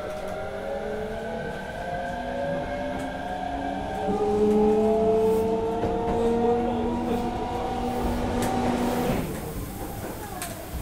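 Mitsubishi IGBT VVVF inverter of an Osaka subway 66 series train whining in several tones that climb slowly as the train accelerates. About nine seconds in the whine cuts off and the level drops, and a few wheel clicks over rail joints follow near the end.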